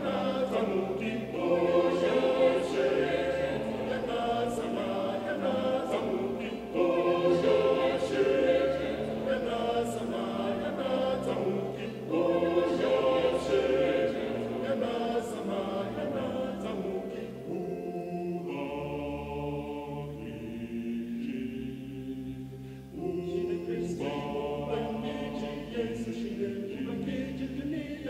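Choir of men's and women's voices singing a cappella in sustained harmony. About two-thirds of the way through the sound thins to fewer, softer voices, then the full choir comes back in.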